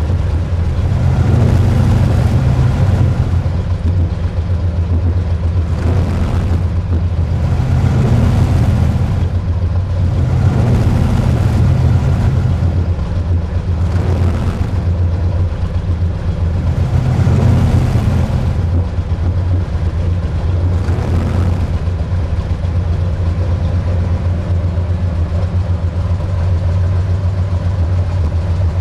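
Vintage sports car engine idling, its throttle blipped in several short revs that rise and fall back through the first two-thirds, then settling to a steady idle.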